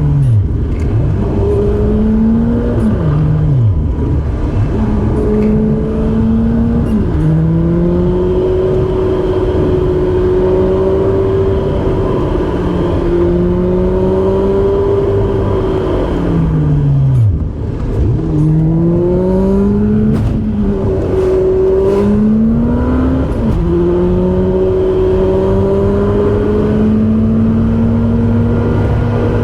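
Car engine pulling up through the gears on the road, its pitch climbing in each gear and dropping at each shift. A little past the middle the revs fall away low and then climb again.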